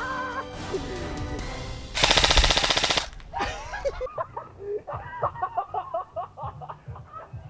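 Nuprol Delta Recon Alpha airsoft electric rifle (AEG) firing a rapid full-auto burst lasting about a second, about two seconds in.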